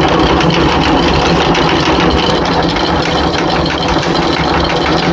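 Electric anchor windlass paying out anchor chain, the motor running steadily while the chain links rattle through the gypsy as the anchor is lowered.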